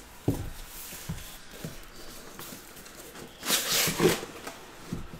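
Cardboard shipping case being handled: a few light knocks, then a louder scraping rustle of the cardboard flaps being opened about three and a half seconds in, and another knock near the end.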